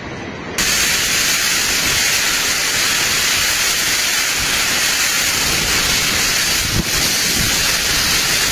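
Typhoon wind and heavy driving rain: a loud, steady hiss that cuts in abruptly about half a second in, with a few low thumps near the end.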